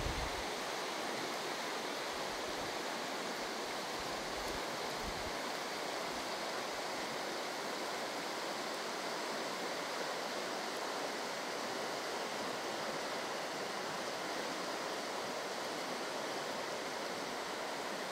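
Mountain river rushing over a shallow, stony riffle: a steady, even wash of flowing water.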